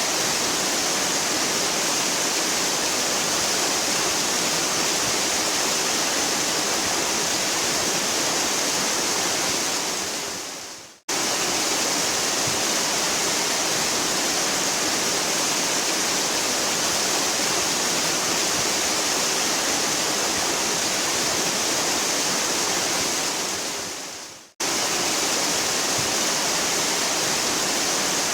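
Waterfall: a steady, dense rush of falling water with a bright hiss on top. Twice, about eleven and about twenty-four seconds in, the sound fades away over a second or so and then cuts back in suddenly at full strength.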